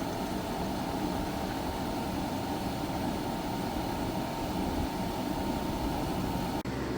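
EcoFlow Wave portable air conditioner running in cooling mode with its fan on high and the compressor on: a steady rush of air with a faint steady high tone. It drops out briefly near the end, then carries on.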